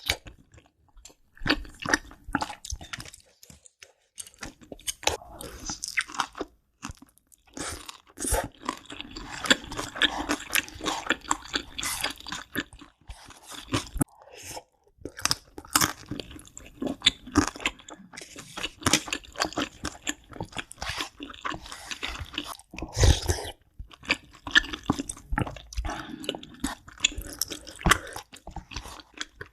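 Close-miked eating: a person biting into and chewing crunchy food, with many sharp, irregular crunches and wet chewing sounds.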